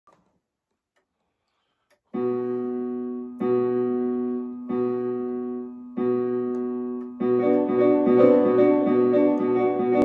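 Electronic keyboard playing. After about two seconds of silence come four held chords, struck about every second and a half, and about seven seconds in a busier passage of moving notes begins.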